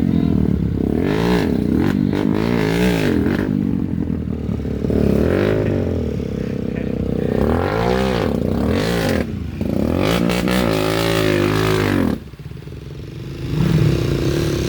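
Motorcycle engine revved up and down over and over, its pitch rising and falling every second or so, with a brief drop in level near the end. The engine is kept running while submerged in water.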